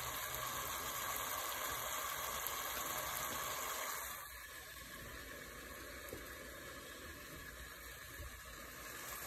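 Ground chicken keema and pre-boiled baby potatoes frying in a steel pot: a steady sizzle that drops in level about four seconds in.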